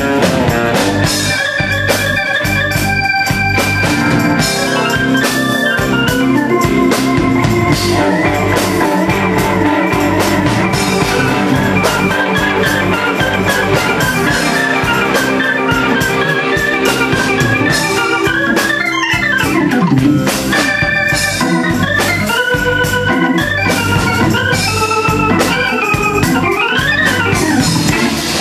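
Live blues-rock band with an organ-voiced stage keyboard taking a solo: quick runs of notes climbing and falling over the band's drums.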